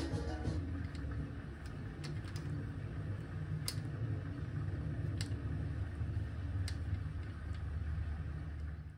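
Steady low hum with three sharp clicks about a second and a half apart in the middle, as the rocker arms on an LS1 cylinder head are pressed and handled.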